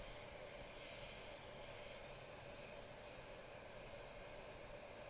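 Gravity-feed paint spray gun hissing as basecoat is sprayed, the hiss swelling with each pass, over a steady hum.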